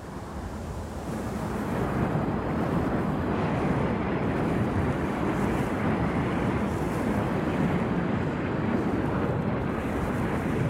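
Burning oil well's flame jetting from the top of a steel venturi tube: a loud, steady rushing roar that builds over the first couple of seconds and then holds evenly.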